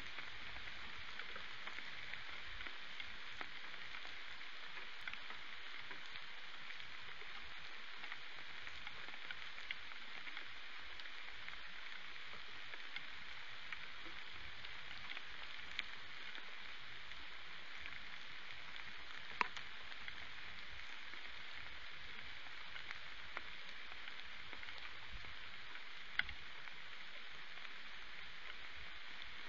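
Steady rain falling: an even hiss with scattered raindrop ticks, a few of them sharper and louder than the rest.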